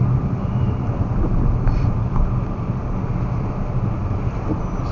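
Steady low drone of a car heard from inside the cabin: engine and road noise, with no talking.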